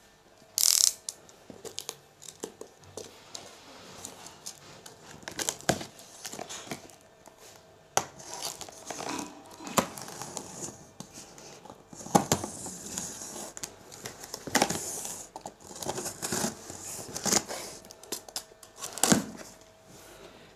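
Box cutter slicing the packing tape on a cardboard monitor box, with tape tearing and cardboard rustling as the box is opened. The sound comes as a run of short scraping rips and clicks.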